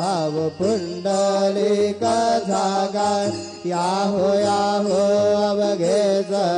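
Devotional aarti hymn being sung, a chanted melody over a steady sustained drone.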